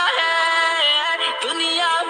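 Urdu patriotic song: a sung vocal melody with held, wavering notes over backing music, thin-sounding with no bass.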